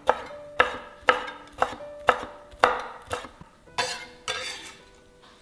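Chef's knife chopping small red chilies on a wooden cutting board: sharp knocks of the blade on the board, about two a second, growing weaker and stopping about four seconds in.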